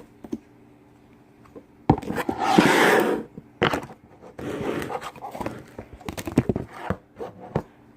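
Cloud slime being squished and stretched by hand: a loud airy rush about two seconds in, then scattered sticky crackles and pops.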